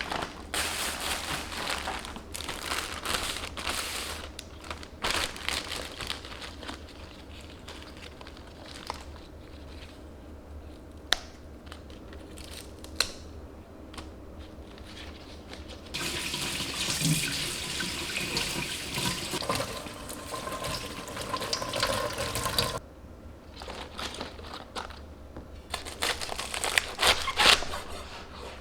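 Water running from a kitchen tap into a sink in several spells, the longest lasting about seven seconds, with a couple of sharp clicks in between.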